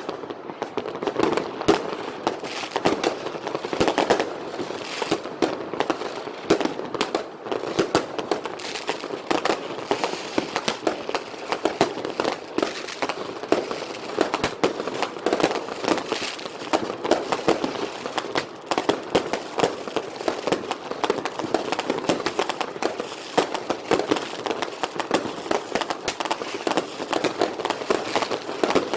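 Fireworks and firecrackers going off all at once: a dense, unbroken stream of pops and bangs, many every second, overlapping into a continuous crackle.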